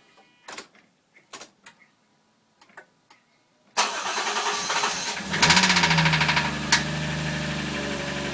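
A few faint clicks, then the starter cranks a Toyota 1JZ straight-six, run with no accessory belt fitted, for about a second before it catches and settles into a steady idle with an even rapid tapping, the knock the owner is chasing.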